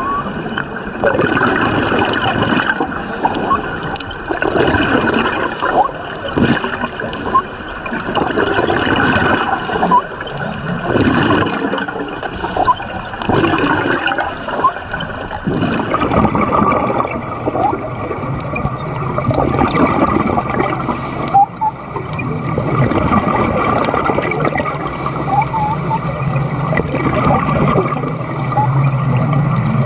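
Underwater bubbling and gurgling of scuba divers' exhaled air from their regulators, heard as a loud, uneven rushing noise.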